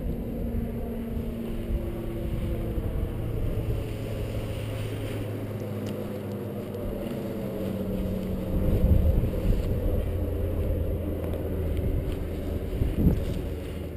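Wind buffeting the camera's microphone as a paraglider wing is pulled up and held overhead: a steady low rumble with a faint low hum underneath, swelling in gusts about two-thirds of the way in and again near the end.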